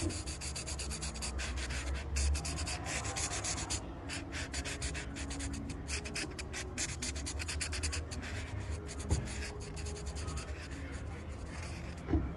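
Felt-tip marker scratching across floor tile in quick, repeated drawing strokes, over a steady low hum. The strokes thin out shortly before the end.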